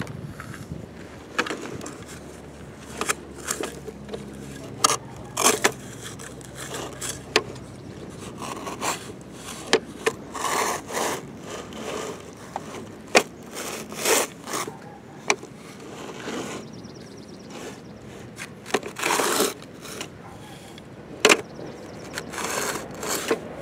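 Plastic toy excavator bucket scraping and digging in sand, moved by hand: a string of short scrapes and plastic clicks, with a few longer scrapes of about half a second.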